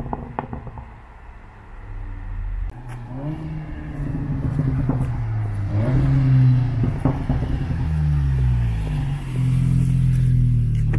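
Seat Leon Cupra 300's turbocharged four-cylinder, through an E-Exhaust 3.5-inch valved exhaust, driving up and getting louder, its note rising and dropping back several times with gear changes and throttle.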